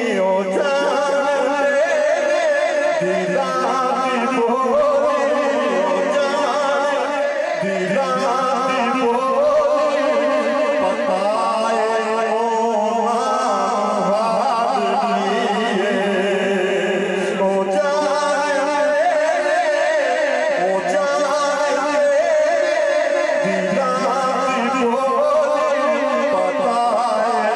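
A man singing a naat, a devotional song, into a microphone, with a long, ornamented, wavering vocal melody.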